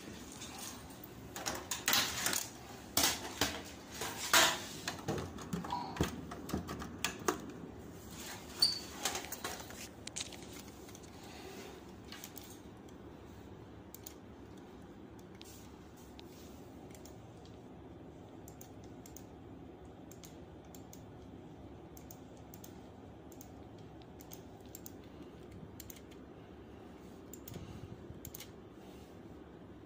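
Clicks and taps, dense and loud for about the first twelve seconds, then sparse and faint over a steady low hum from the network video recorder's cooling fan.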